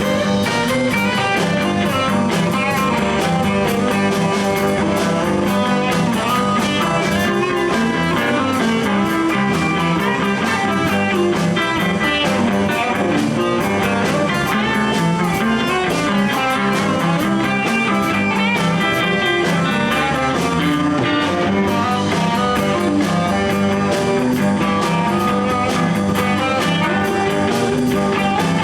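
Live blues band playing an instrumental stretch: a guitar solo over bass and drums, steady and loud throughout.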